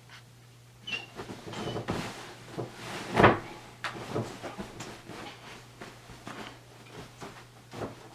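A series of irregular knocks and scuffling clatters, loudest about three seconds in, with a brief high squeak about a second in.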